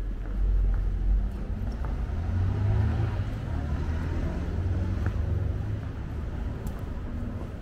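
Street traffic: motor vehicles passing with a low rumble.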